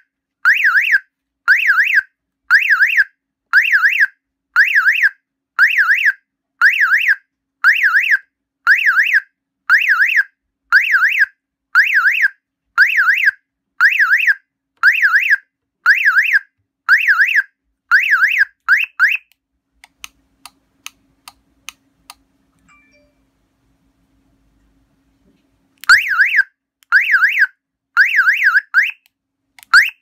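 OMEGA Cobra car alarm siren sounding a loud pulsed alarm about once a second, each pulse sweeping up and down in pitch. It stops about two-thirds of the way through, and after several seconds with only a few faint clicks it sounds again briefly near the end.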